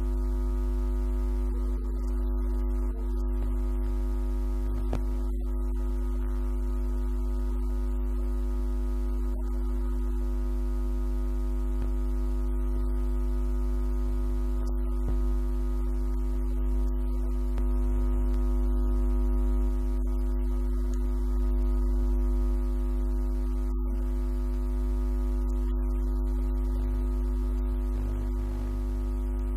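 Loud steady electrical hum with a buzzy ladder of overtones, unchanging in pitch and level, drowning out any speech in the room.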